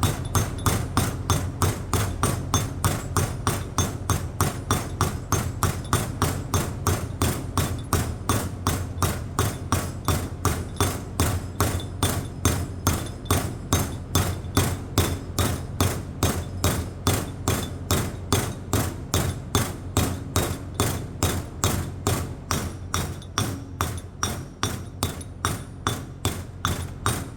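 A hammer tapping a new bearing down into a metal mower-deck spindle housing, about three steady strikes a second as the bearing is driven in to seat.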